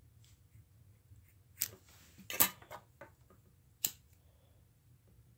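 Scissors snipping nylon paracord: a few sharp snips between about one and a half and three seconds in. Just before four seconds comes a single sharp click as a disposable lighter is struck.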